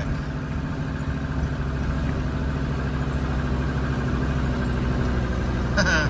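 Vehicle engine running steadily, heard from inside the cab.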